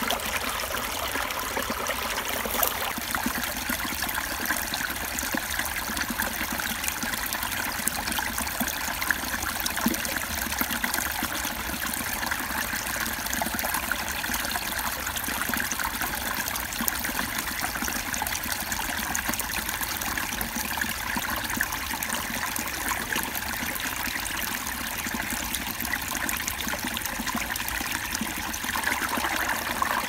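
A small shallow creek babbling over stones, a steady trickling rush of water that grows a little louder near the end.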